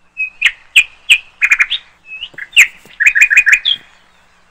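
Young birds chirping in many short, high calls, some in quick runs of three or four: fledglings chirping frantically in alarm.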